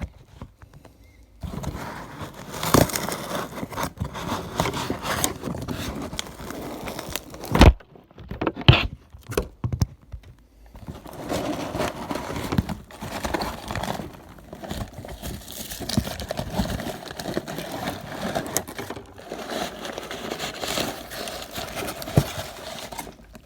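A shipping package being handled and pulled open by hand: continuous rustling and crinkling of packaging, with a few sharp knocks or snaps, the loudest two about eight and nine seconds in.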